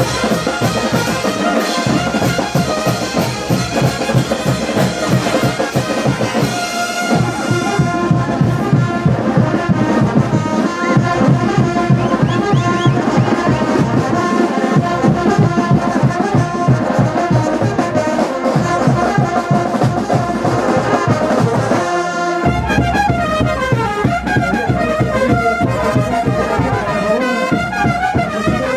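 Marching brass band playing: trumpets, trombones and sousaphones over a steady bass-drum beat.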